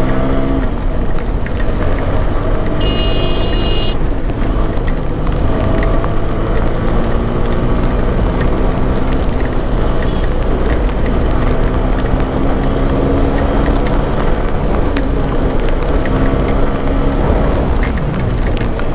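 TVS Apache RTR 200 4V's single-cylinder engine running as the motorcycle is ridden on a wet road, its pitch rising and falling with the throttle, over a steady hiss of wind and wet-tyre spray. A brief high tone sounds about three seconds in.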